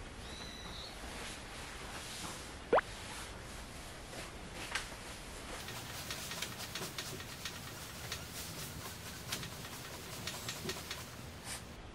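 Light clicks and creaks from a wooden bunk bed as it is jostled, coming thicker in the second half. A little under three seconds in, a short sharp rising whistle cuts through, the loudest sound.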